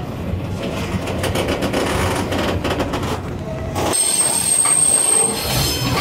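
Gangway between two cars of a Taiwan Railways local train in motion: the diamond-plate floor plates rattle and grind against each other over a running rumble, a really unpleasant sound. About four seconds in, a shrill, steady squeal joins in for just over a second.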